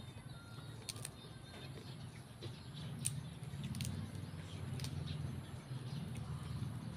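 Low, steady background rumble with a few faint, sharp clicks scattered through it.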